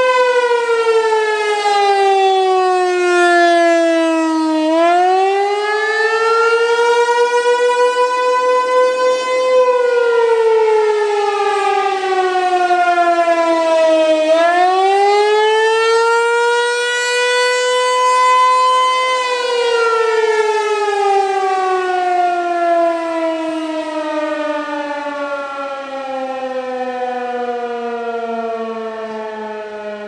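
ASC T-128 rotating electromechanical siren sounding the attack signal: one steady tone whose pitch slides down and climbs back up twice, each high point briefly held. About two-thirds of the way through it begins a long, slow wind-down, the pitch falling steadily.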